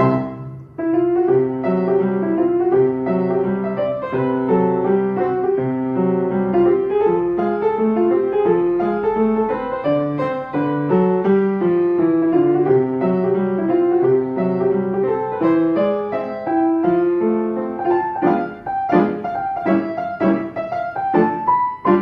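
Solo piano playing a melody over a steady accompaniment, with a short break just after the start and a series of struck chords near the end.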